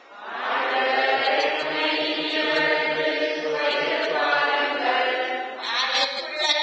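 Choir and congregation singing together in Tamil, holding long sung notes, most likely the sung response of the psalm that comes before the second reading at Mass.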